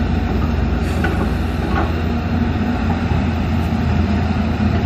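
Steady low diesel rumble of heavy machinery: a UD Quester dump truck idling and a Volvo excavator working its boom. Two faint knocks about one and two seconds in.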